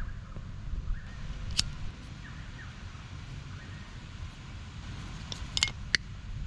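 Hands working a mower recoil starter's pull cord and small tools: a light click about a second and a half in and a short cluster of clicks near the end, over a steady low background rumble.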